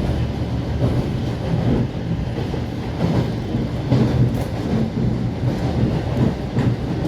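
Train wheels rumbling and clattering over the rails as the train runs along steadily, heard from inside the passenger carriage.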